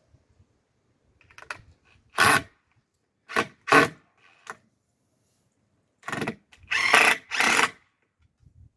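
Power drill run in short bursts of about half a second, three close together and then three more after a pause, typical of driving screws.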